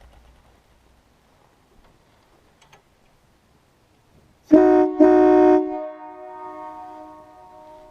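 Nathan three-trumpet train horn (trumpets 1, 2 and 4A, which the owner takes for a K3LA) blown on compressed air: about four and a half seconds in it sounds a loud chord in two blasts, a short one and then one of about half a second. The chord then trails off, fading over about two seconds.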